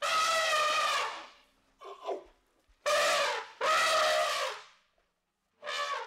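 Elephant trumpeting: a long blast, a faint short call, then two blasts back to back, with another short call beginning near the end.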